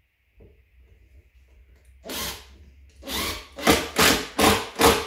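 Cordless drill driving a screw through a drawer side into a chipboard drawer front in short pulses: one burst about two seconds in, another a second later, then a quick run of brief bursts about two a second. The trigger is being feathered so the screw is not driven too deep into the chipboard.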